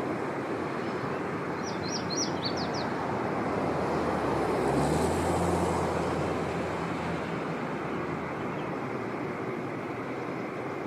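A small bird gives a quick run of five or six high, down-slurred chirps about two seconds in, over a steady rushing background noise. Near the middle, a low hum swells and fades.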